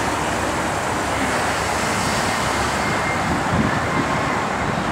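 2005 Chevy Avalanche with a 5.3-litre V8 driving slowly across a parking lot, giving a steady mix of engine and road noise.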